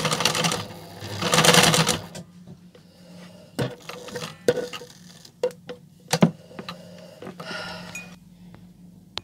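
Domestic electric sewing machine stitching in two short runs in the first two seconds, then scattered clicks and knocks from the mechanism as the handwheel is worked by hand, with a softer brief run near the end.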